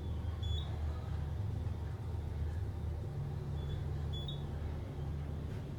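Modernized traction elevator, originally Westinghouse, travelling upward, heard from inside the cab: a steady low hum and rumble from the ride.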